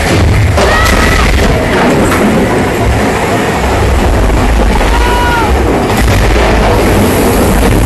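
Big Thunder Mountain Railroad mine-train roller coaster running loudly through a tunnel: a heavy, continuous rumble of the train on its track. Two short high squeals rise and fall over it, about a second in and again about five seconds in.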